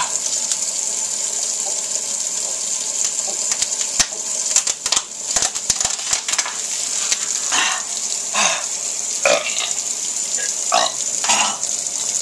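Kitchen tap running steadily into a sink, with a cluster of sharp clicks and knocks about four to six seconds in and several short throat noises from a person in the second half, like gulps or burps after a foul-tasting drink.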